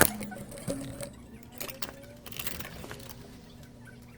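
Faint clicks and short rustles of a circuit board and small parts being handled on a repair bench, starting with one sharp click, over a faint steady low hum.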